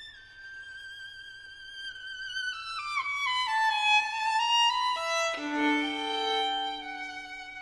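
Background music: a violin playing a slow melody with vibrato, its notes stepping downward in pitch, then settling on lower held notes near the end.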